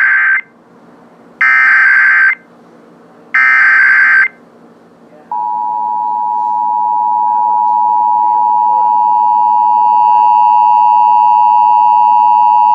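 Emergency Alert System SAME header being sent over FM radio: the end of one short screeching data burst, then two more, each under a second, about two seconds apart. About five seconds in, the steady two-tone EAS attention signal starts and holds, marking the start of a Required Monthly Test.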